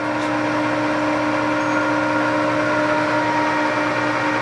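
Kingston HJ1100 17-inch gear-head lathe running with the spindle turning and the power feed engaged, giving a steady hum with a held gear whine.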